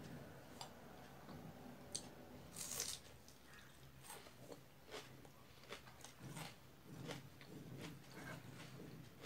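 Faint hand-eating sounds: fingers mixing rice and chicken curry on a ceramic plate and a mouth chewing, with scattered small clicks. A brief louder hissy rustle comes a little under three seconds in.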